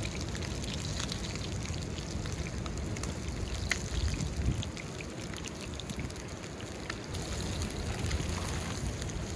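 Pieces of nannygai fillet frying in oil in a small pan over a wood campfire: a steady sizzle with scattered crackling pops.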